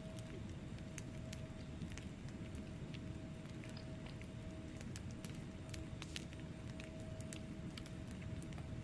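Wood fire burning in a fireplace: a steady low rumble of flame with frequent irregular sharp crackles and pops from the burning logs.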